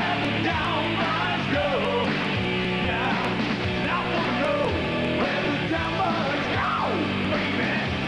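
Live glam-metal band playing at full volume: a male singer over distorted electric guitars, bass and drums.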